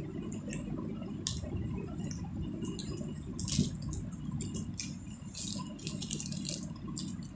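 Two boys chewing with their mouths full: wet, squishing mouth sounds close to the microphone, with scattered small clicks and a rustle of a plastic snack wrapper near the end.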